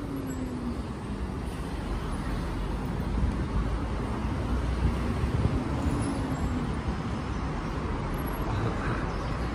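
City street traffic noise: a steady wash of passing vehicles, with a low engine hum that rises and falls in pitch twice.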